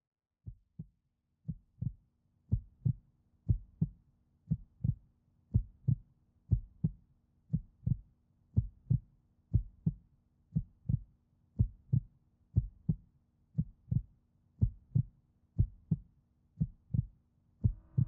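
Heartbeat sound effect: a low double thump, lub-dub, about once a second, fading in over the first two seconds and then steady, over a faint hum.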